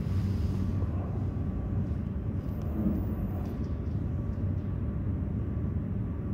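A steady low rumble of background noise with a faint hum.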